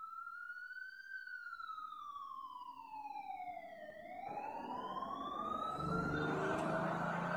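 Wailing siren: one tone sliding slowly up, down over about three seconds, and up again. From about four seconds in, the noise of an audience in a large hall rises under it and grows louder as the siren fades.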